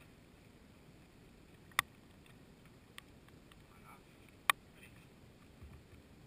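Two sharp knocks, with a fainter click between them, as a boulderer makes moves on the sandstone holds of an overhanging boulder, over a faint steady background hiss.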